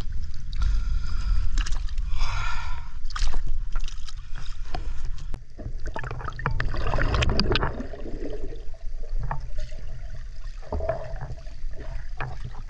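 Water sloshing and gurgling close around the camera, with scattered clicks and knocks and a steady low rumble. It is loudest in the first three seconds and again between about six and eight seconds in.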